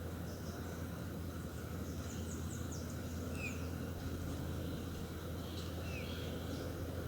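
Small birds chirping intermittently, short high chirps with two brief downward-sliding calls, over a steady low hum of outdoor background noise.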